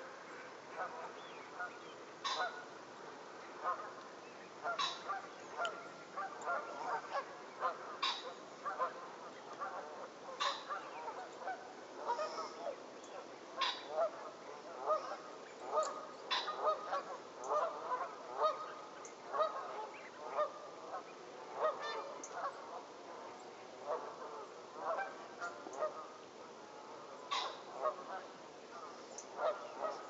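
A flock of Canada geese honking almost continuously, many short overlapping calls from birds on the water. Every few seconds there is a short, sharp, higher-pitched sound.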